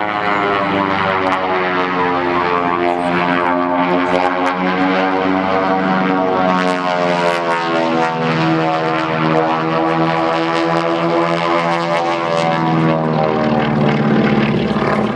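Beech 18's twin Pratt & Whitney R-985 radial engines and propellers droning loudly through an aerobatic manoeuvre, the pitch slowly sagging and rising as the plane climbs and turns.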